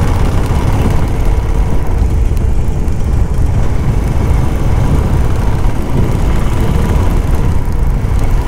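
Motorcycle running steadily while being ridden, its engine drone mixed with a dense low rumble of wind and road noise.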